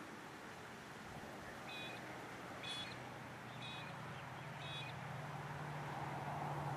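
A bird calls four times, about once a second, each call a short, high note, over a steady background hiss. In the second half a low engine hum comes in and grows louder.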